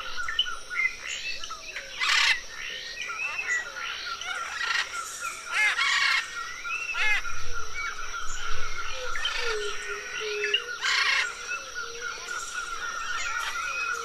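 Tropical forest ambience: many birds chirping and whistling over a steady, rapidly pulsing insect trill, with three short harsh noisy bursts about 2, 6 and 11 seconds in.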